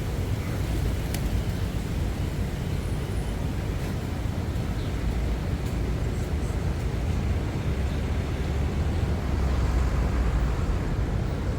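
Steady city street traffic: a continuous low rumble of passing cars and engines, with a few faint ticks and clicks above it, growing a little louder near the end.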